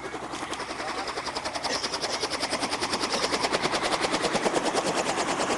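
Helicopter rotor beating in a fast, even rhythm, growing steadily louder.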